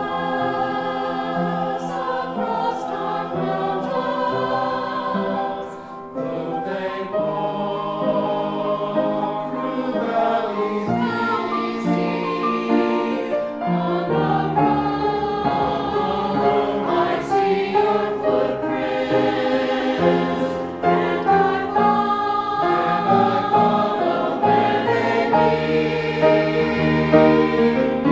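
Church choir singing a hymn, several voices holding long notes together.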